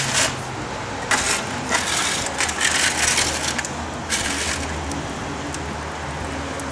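Disposable aluminium foil tray scraping across the brick floor of a wood-fired oven as it is pushed along with a long metal rod, in several short scraping strokes over a steady low hum.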